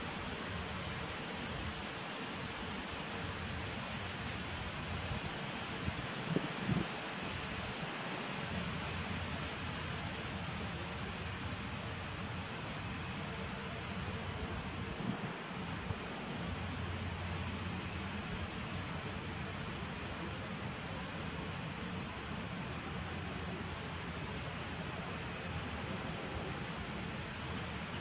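Honeybees buzzing steadily at the crowded entrance of a nuc hive, with a steady high-pitched insect trill over the hum.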